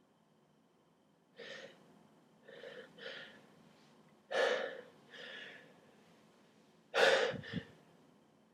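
A person's short gasping breaths, a run of six or seven catches getting louder with the loudest near the end: the build-up to a sneeze set off by pulling nose hairs.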